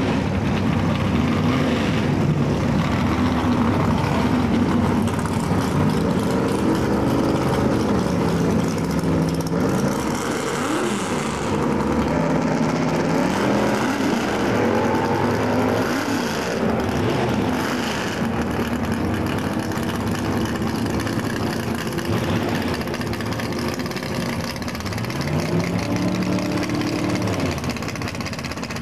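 Drag-racing engines of front-engine dragsters running loudly and revving, their pitch sweeping up and down several times.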